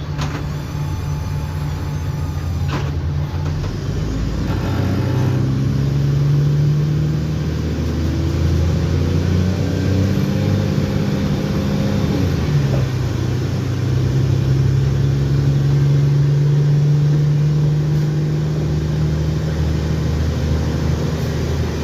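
Mercedes-Benz O-500M bus engine accelerating through its Voith automatic gearbox: the engine note climbs for several seconds, drops suddenly at an upshift about halfway through, then rises slowly again.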